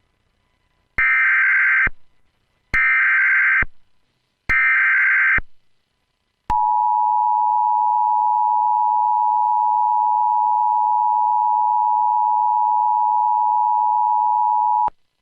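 Emergency Alert System tones: three bursts of SAME header data about a second each, then the steady two-tone attention signal held for about eight seconds before it cuts off, marking the start of an alert.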